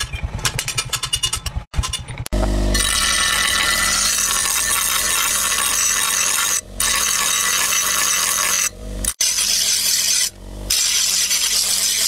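Rapid, even hammer strikes on a steel knife blade lying on a steel post anvil. After a short break they give way to a large grinding wheel grinding the blade, a steady loud hiss that drops away briefly three times as the blade comes off the wheel.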